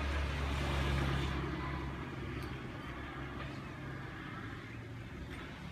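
A motor vehicle engine running close by with a low hum that fades away over the first two seconds, as a vehicle passing and moving off, leaving faint outdoor background noise.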